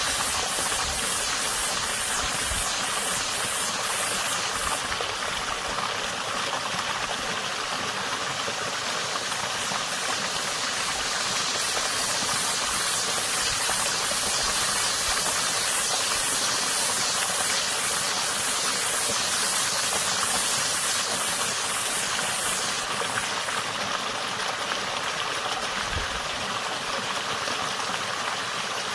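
Water running steadily in a small creek, with a cicada singing a high, rapidly pulsing buzz over it. The buzz eases off about five seconds in, swells again around twelve seconds, and eases again near the end.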